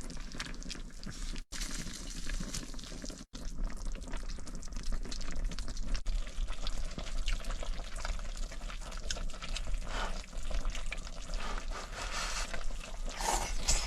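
Food cooking in a pan on a small stove: liquid sizzling and bubbling, broken by three abrupt cuts in the first six seconds.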